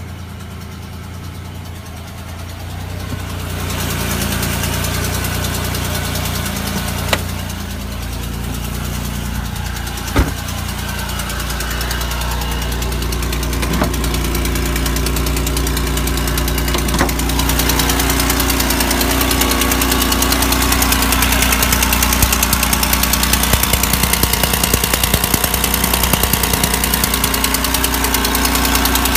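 GM 3800 L67 supercharged V6 running with a fast, even ticking puff from an exhaust leak. The sound grows louder partway through, with a few sharp clicks along the way.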